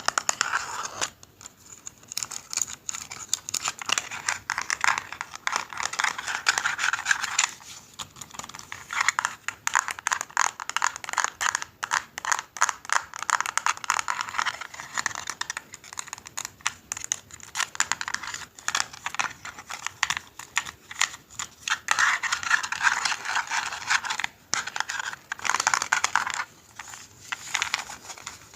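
Dense, rapid clicking and scratching on a hard object, in stretches of several seconds with short pauses between them.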